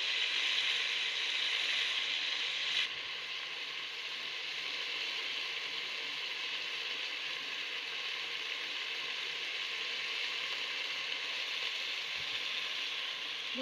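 Cauliflower and potatoes frying in oil in an aluminium pot: a steady sizzle that drops a little in level about three seconds in.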